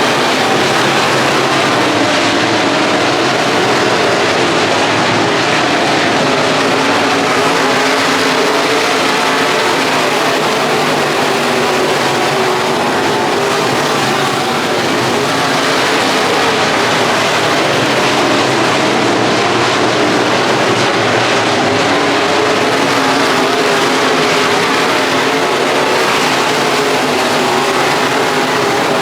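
Chevy Cobalt dirt-track race car's engine running hard at steady, high revs, with a loud rush of road and wind noise.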